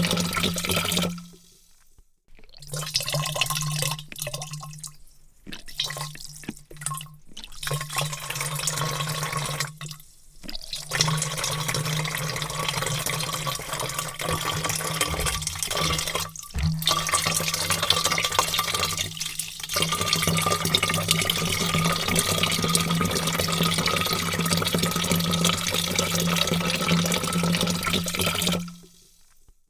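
Large volume of water pouring in a steady stream into a vat, a continuous rushing splash with a steady low hum beneath it. The sound cuts out abruptly to near silence several times, for about a second each, then resumes.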